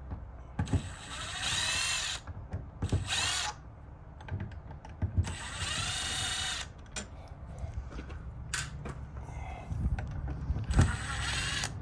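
Cordless screw gun backing the screws out of a deadbolt's knob panel: several short runs of a motor whine, each rising then holding for a second or so, with small clicks and knocks between them.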